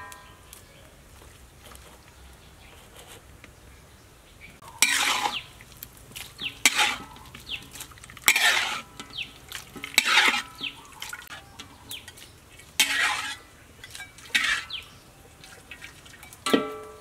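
Metal ladle scraping and knocking against a steel wok as squid and pig tongue are scooped out into a plastic colander. The strokes start about five seconds in and come every one to two seconds, and a knock near the end leaves a short metallic ring.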